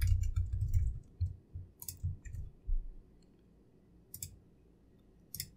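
Sparse typing on a computer keyboard: a handful of separate key clicks spread out about a second apart, with low thumps in the first second.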